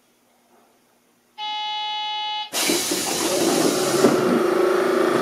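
Aboard a Seibu 8500 series rubber-tyred train: a steady electronic buzzer tone for about a second, then a sudden loud, steady mechanical rushing noise with a low hum.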